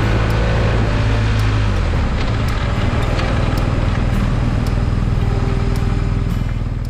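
Motorcycle engine running while riding, with a steady rush of wind and road noise over it; the engine note steps down about two seconds in.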